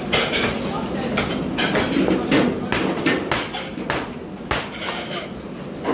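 Knife cutting raw chicken on a plastic cutting board: a run of irregular knocks, about two or three a second, as the blade strikes the board.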